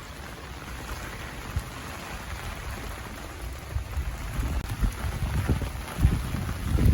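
Steady rain falling, with low, irregular rumbles that grow stronger near the end.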